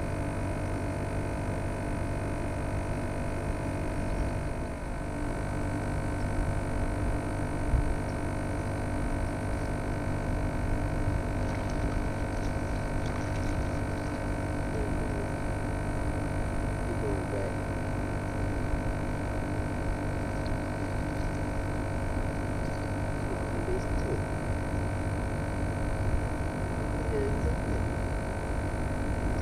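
A steady hum of several held tones.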